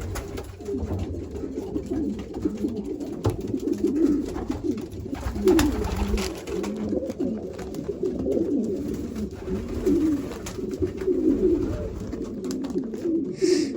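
Many racing pigeon cocks cooing over one another without pause, a dense chorus of low warbling coos, with a few sharp clicks among them. The cocks are in breeding condition, calling as they claim their nest boxes.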